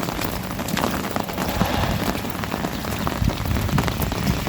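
Steady rain falling on an open umbrella held overhead, with many separate drop hits and a low rumble underneath.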